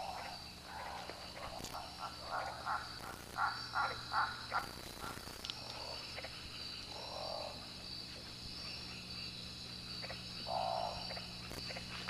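Night rainforest chorus: a steady high insect trill, with frogs croaking in short pulsing runs, loudest about three to four seconds in, and single croaks later on.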